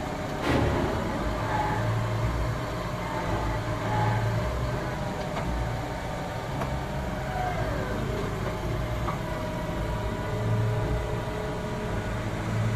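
Heavy farm machinery with diesel engines running steadily during maize harvesting, with a sharp knock about half a second in and a falling tone near the middle.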